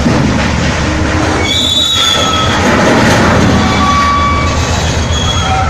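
P&H electric mining rope shovel loading a haul truck: a loud, steady low machinery drone with high squealing tones that come and go. Rock spills from the shovel's dipper into the truck's bed.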